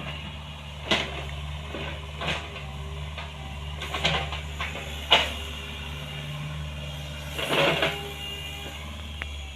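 Excavator engine running steadily, with a series of knocks and clanks from the machine at work, the loudest about five seconds in, and a longer rattle near eight seconds.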